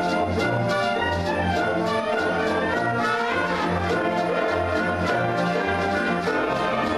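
Military concert band playing, brass instruments to the fore over bass notes and a steady percussion beat.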